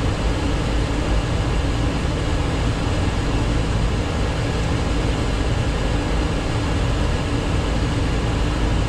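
Steady flight-deck noise inside a Boeing 737-800 on landing approach: an even rush of airflow and engine hum with a low rumble underneath.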